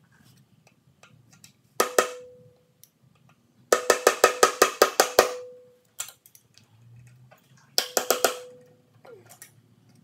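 Hammer tapping a pick to punch through the old upper crankshaft oil seal, each blow a sharp metallic clink with a brief ring. There are two taps about two seconds in, a quick run of about ten taps around four to five seconds, a single tap at six seconds, and a short burst of taps near eight seconds.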